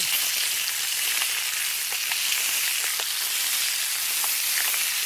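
Sausages, peppers and onions sizzling in a cast iron skillet: a steady frying hiss with scattered small pops.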